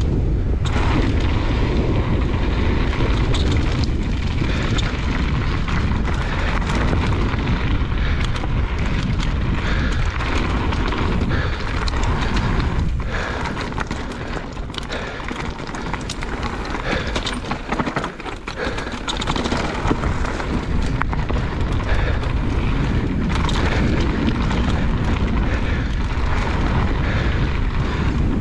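Wind buffeting the microphone over the rumble of a mountain bike's tyres on a rough trail. Sharp clicks and rattles from the bike run through it. The noise eases for a few seconds about halfway through, then builds again.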